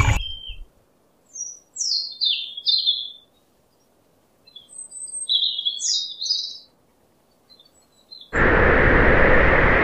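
Small bird chirping in two short runs of quick falling chirps. Near the end a loud, steady rushing noise cuts in suddenly.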